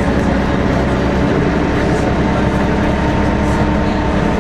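Interior noise of a Volvo B10BLE single-deck bus under way, heard from a passenger seat: its rear-mounted six-cylinder diesel and driveline giving a steady drone with a thin whine that edges up a little in pitch from about a second in, with faint light rattles from the body.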